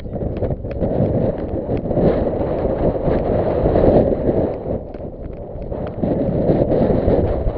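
Wind buffeting the microphone in a loud, uneven rumble, with scattered light clicks through it.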